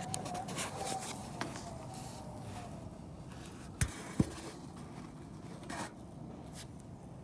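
Light scraping and rubbing of a phone moving against and inside a bare aluminium aileron, with two sharp knocks close together about four seconds in.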